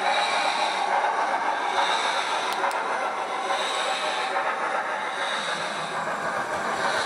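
Digital steam sound from an OO-gauge Hornby LMS 8F model's Loksound v5 decoder, played through a small speaker in the tender: a steady hiss and steam-engine noise, swelling and fading every second or two.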